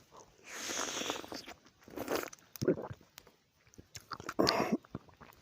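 Close-up mouth sounds of a person biting and chewing lemon: several noisy bursts with small clicks between them.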